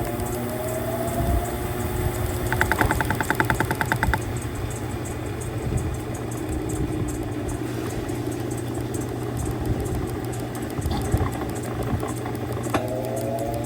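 Mueller Popmatic 8 kg top-loading washing machine running a wash cycle: its motor whines up in pitch in short agitation strokes at the start and again near the end, with a rapid buzzing rattle for about a second and a half early on and a steady mechanical hum between.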